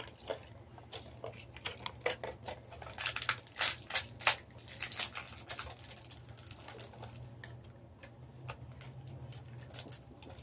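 Small clear plastic toy bag crinkling and crackling as it is handled and opened, a quick run of crackles that is loudest around four seconds in.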